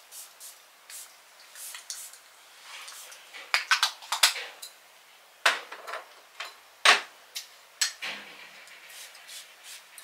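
Small toiletry bottles and items being handled and set down on a dressing table: a series of sharp clicks and taps, bunched about four seconds in, with the loudest knock a little before seven seconds.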